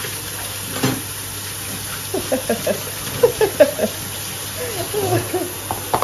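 Kitchen tap running steadily into a sink while a plastic food container is rinsed under the stream, with one knock about a second in.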